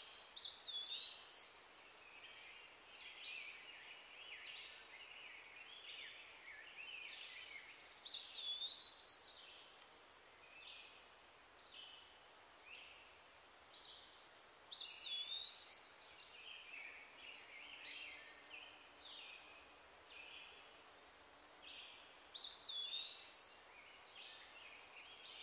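Wild birds calling and singing, one repeating a curved whistled phrase about every seven seconds among scattered shorter chirps, over a faint steady outdoor hiss.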